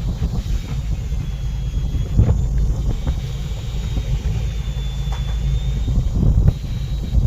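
Steady low rumble of a fishing boat's engine at sea, with a few dull thumps.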